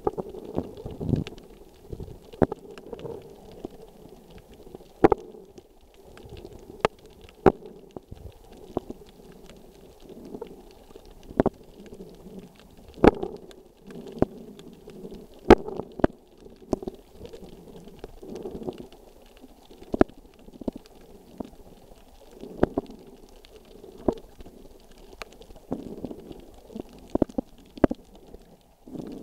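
Muffled underwater ambience heard through a camera in a waterproof housing: a low rumbling murmur broken by irregular sharp clicks.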